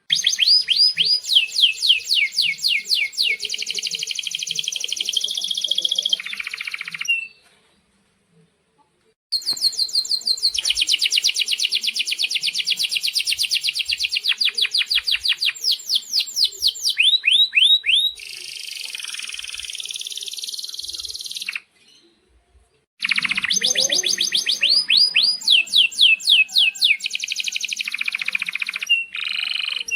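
Male domestic canary singing three long song phrases of rapid trills and quick falling notes, pausing for a second or two between them.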